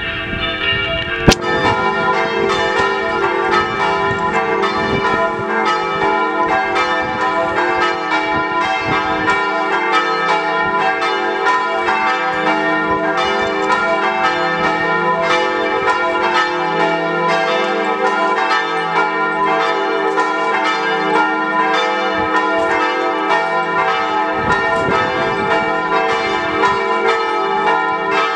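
Church bells ringing steadily, many strikes overlapping one another, with one sharp knock about a second in.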